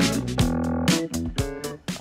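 Background music: an upbeat funk-style track with guitar, bass and a steady beat.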